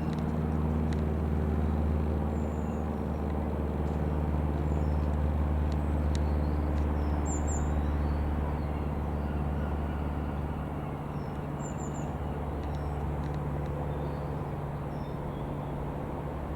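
Reims Cessna F152's four-cylinder piston engine and two-blade propeller droning steadily as the light aircraft flies over, slowly growing fainter in the second half. A few faint high chirps come about halfway through.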